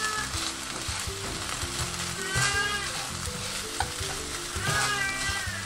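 Pork mince, cabbage and garlic chives sizzling in a frying pan and being stirred, with small knocks of the utensil against the pan, as the potato-starch slurry thickens the mixture.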